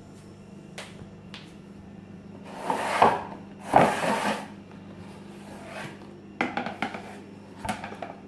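Handling noise from a plastic engine cooling fan being turned over in the hands: two brief rubbing swishes about three and four seconds in, and several light clicks and knocks of plastic.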